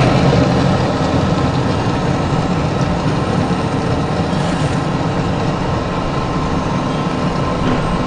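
400-model wood pellet mill running steadily under load, its drive and die making a loud, even mechanical hum while pressing sawdust into pellets.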